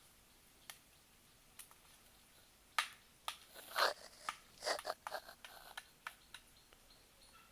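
Scattered light clicks and knocks of wood being handled, bunched together in the middle, a few with a short ring.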